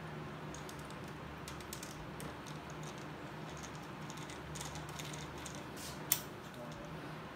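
Screwdriver driving a screw into the chrome fuel-tank console of a Harley-Davidson, making scattered light clicks and small metal scrapes, with one sharper click about six seconds in. A low steady hum runs underneath.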